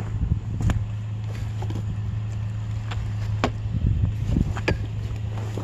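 Truck engine running with a steady low drone, with scattered light clicks and rattles over it.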